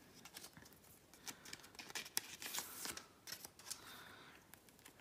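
Faint rustling and light clicks of a photocard being handled and slid into a plastic binder sleeve, with a longer swish midway.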